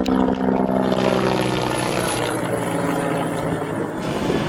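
Bell 412 helicopter running steadily, with its twin turbines giving a thin high whine above the rotor noise.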